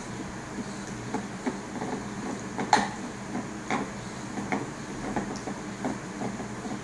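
English bulldog gnawing on a deer antler: irregular hard clicks and knocks of teeth on antler and antler on the floor, the loudest a little under three seconds in.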